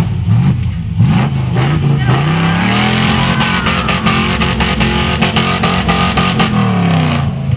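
Off-road rock-crawler truck's engine revving up hard and held at high revs while its tyres spin for grip on a dirt ledge, with rough scrabbling and knocking from the tyres. The revs drop back near the end.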